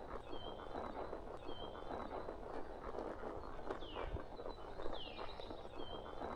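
Horse walking along a forest trail, its hooves clip-clopping and crunching steadily on the ground. A bird calls over it with short repeated whistles and a couple of falling notes.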